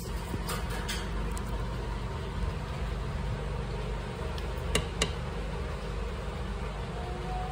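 Steady low background rumble with an even hiss, broken by a few faint clicks about a second in and two sharper clicks close together about five seconds in.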